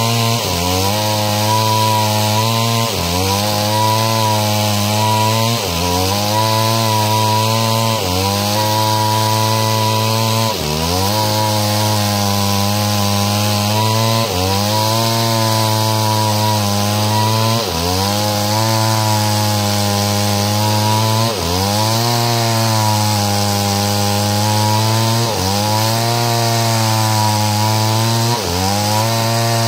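Stihl two-stroke chainsaw running at high speed while ripping wood lengthwise into planks. Its pitch dips briefly about every three seconds as the chain bogs under load, then climbs back.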